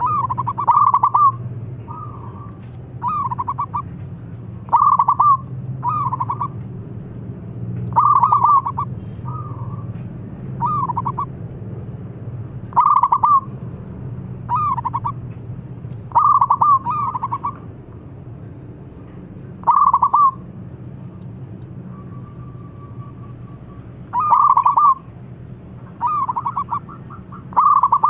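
Zebra dove (perkutut) cooing: short bursts of quick trilled notes repeated every second or two, with a break of a few seconds about two-thirds of the way through. It is the clear, bright 'crystal' voice that keepers prize in a singing perkutut.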